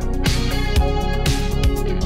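Background music with a steady drum beat of about two beats a second under sustained instrumental notes.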